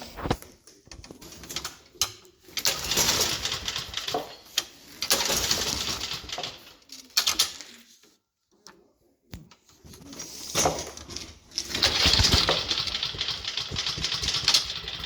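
Recoil starter on a Cub Cadet mower's Kawasaki FJ180V 179 cc engine pulled several times in a row, each pull a noisy whir lasting a second or two, without the engine starting.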